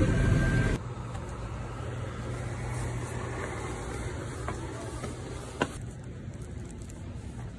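Street traffic ambience: a louder passage cuts off abruptly under a second in, leaving a steady low vehicle engine hum under general street noise, with a single sharp click about five and a half seconds in.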